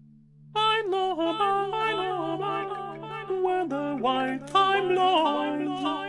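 Background music: a quick, stepping melody enters about half a second in over a steady low drone.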